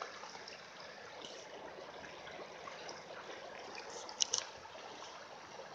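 Shallow creek water running over gravel: a faint, steady rippling flow, with two or three brief sharp sounds about four seconds in.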